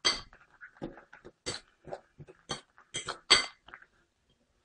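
Sliced potatoes, chorizo and beaten egg being stirred in a glass bowl: a string of short, irregular wet squelches and clinks against the glass, about two a second.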